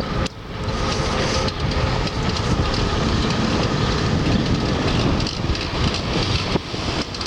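Steady rumble of a vehicle in motion on a city street, with road or rail running noise.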